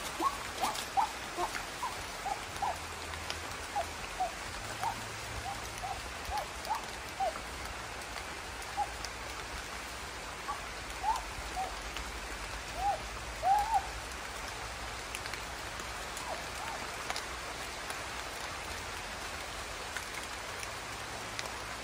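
Tropical forest ambience: a steady even hiss, with many short chirping animal calls that thin out and stop about 14 seconds in.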